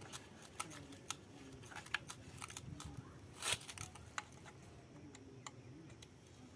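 Scattered small clicks and taps of chainsaw parts and tools being handled during a strip-down, with one louder scrape or clatter about three and a half seconds in.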